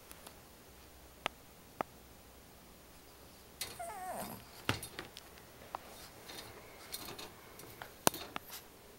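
A puppy in a wire kennel gives one short, wavering whine that falls in pitch, about four seconds in. Scattered clicks and knocks come before and after it, the sharpest about eight seconds in.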